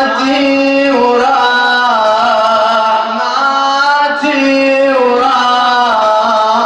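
A male radood chanting a mournful Shia elegy (latmiya) in long, held, wavering melismatic notes, with a short break in the line about three seconds in.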